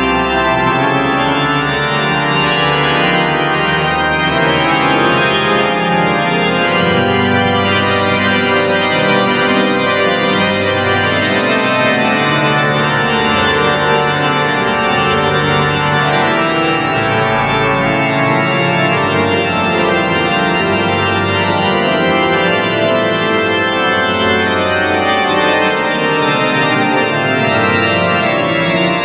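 Church organ playing a full, many-voiced passage over a moving bass line, loud and without a break.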